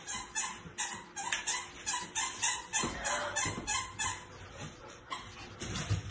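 A girl's excited, breathy giggling in quick short bursts, about three a second, thinning out after about four seconds.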